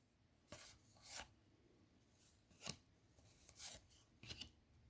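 Faint, short slides and rustles of trading cards being handled and flipped through, about five of them spaced a second or so apart.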